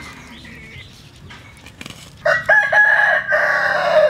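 A rooster crows once, loudly, a long call of nearly two seconds that starts a little past halfway in. Before it there are a few faint high calls and a couple of brief knocks.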